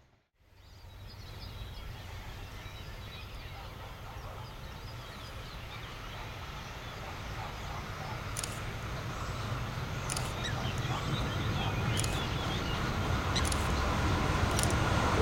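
Steam locomotive 625 100, an Italian FS class 625, approaching with a low rumble that grows steadily louder, while birds chirp over it. A few sharp high clicks sound in the second half.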